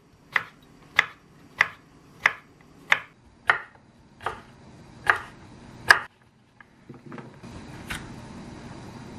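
Chef's knife chopping a cucumber into cubes on a wooden cutting board: about nine sharp knocks, a little under one a second, stopping about six seconds in. A few faint handling sounds and a low steady hiss follow.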